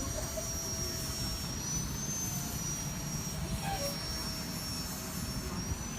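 Bus engine running with a steady low rumble and a thin high whine; no horn sounds.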